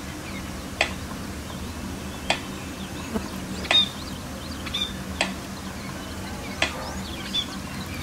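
Budgerigars giving short, sharp chirps and clicks, about one a second with a couple in quick succession, over a faint low steady hum.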